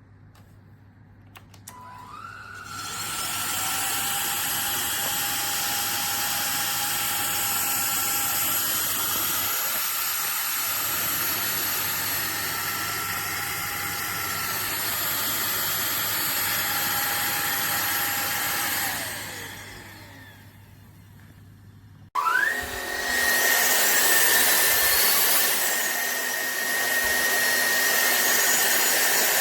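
Cordless stick vacuum cleaner motor switched on with a click and spinning up to a steady whining hum, then winding down about two-thirds of the way through. After a short pause it starts again abruptly, louder and higher in pitch, and runs on steadily.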